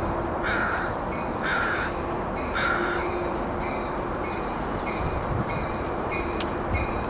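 A crow cawing three times, about a second apart, over steady background noise and faint regular pinging.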